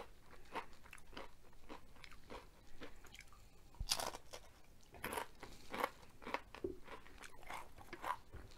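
A person biting into and chewing a crispy fried onion ring: a steady run of short crunches, with a loud bite about four seconds in and more loud crunches a second later.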